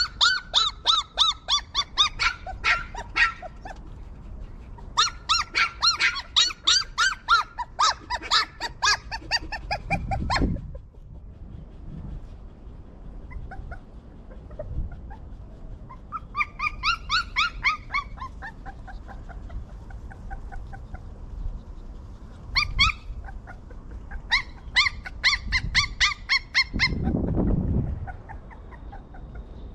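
Puppies whimpering and yipping in several bouts of quick, high cries, each falling in pitch, with a couple of low rumbles, one about ten seconds in and one near the end.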